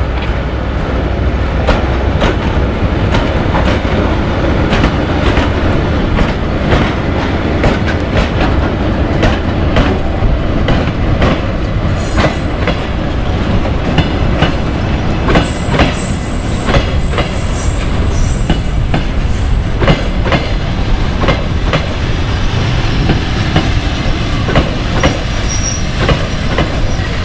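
ChS8 electric locomotive hauling a passenger train slowly past as it arrives at the platform, wheels clicking steadily over the rail joints. Thin high squeals come in from about halfway through as the train slows.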